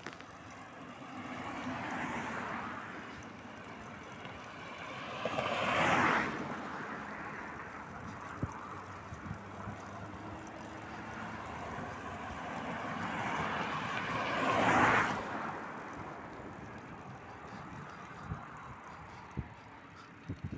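A vehicle running, with wind rush, swelling louder twice and easing off after each.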